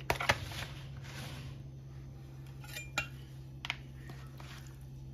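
Raw chicken pieces being handled in a plastic bowl: two sharp knocks right at the start with a short rustle, then a single knock about three seconds in and a couple of lighter clicks soon after.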